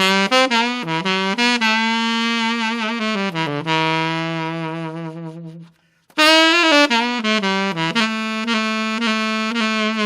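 B-flat tenor saxophone playing a solo melody: a phrase of short notes that ends on a long, low held note fading away, then after a brief pause a new phrase starting loudly about six seconds in.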